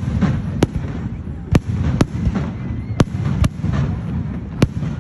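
Aerial fireworks shells bursting: about six sharp bangs in quick, uneven succession over a steady low rumble of booms.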